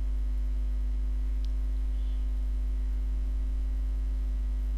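Steady low electrical hum, unchanging, with a fainter higher tone above it.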